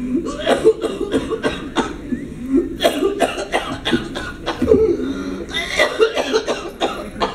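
A man coughing repeatedly in a long, unbroken fit of short, sharp coughs.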